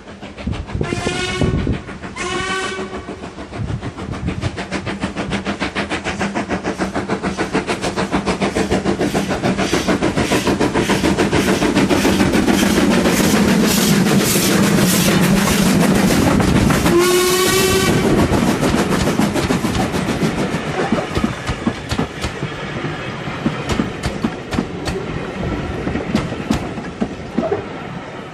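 Ivatt Class 2MT steam tank locomotive No 41241 hauling carriages sounds two short whistles, then its exhaust beats and the clatter of wheels over rail joints build up loud as it passes close by. A longer whistle sounds about seventeen seconds in, and the train's sound then fades away.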